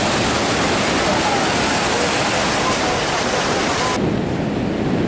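Heavy surf breaking, with wind buffeting the microphone. About four seconds in it cuts abruptly to another recording of surf that sounds duller.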